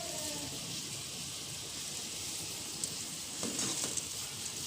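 A pot of spiced herbal jamu boiling hard on the stove, a steady hiss of bubbling as the water is boiled down.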